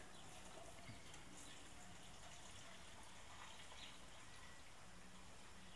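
Near silence: a faint steady background hiss with a few faint, short, high chirps scattered through it.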